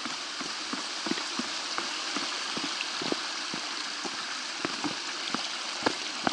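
Brisk footsteps of a hiker going downhill, about two to three steps a second, over wooden log steps and then a dirt trail, above a steady rushing hiss.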